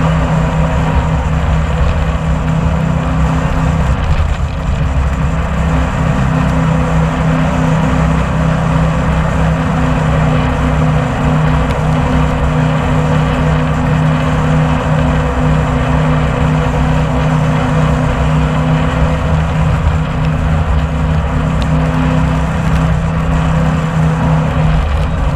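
Tour jet boat's engine running steadily at speed: a constant loud drone with a steady low hum. The hum drops away right at the end.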